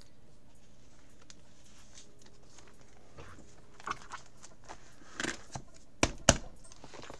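Plastic binder pocket pages being handled: a few soft rustles and clicks as a card is slid into a sleeve, then two sharp thumps close together near the end as a page is flipped over.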